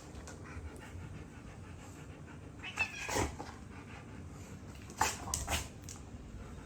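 A household pet making two short bursts of sound, about three seconds in and again about five seconds in.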